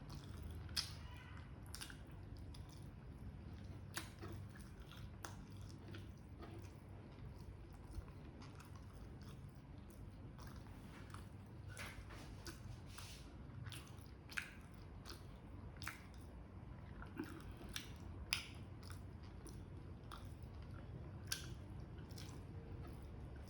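A person chewing and biting chicken liver and gizzard adobo close to the microphone. There are wet mouth clicks and a few sharper crunches every few seconds, over a low steady hum.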